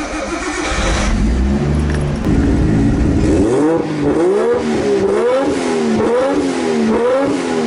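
Turbocharged RB25DET straight-six in an R32 Skyline, heard at the exhaust: it runs steadily for a few seconds, then from about three and a half seconds in it is revved up and down over and over, roughly once or twice a second.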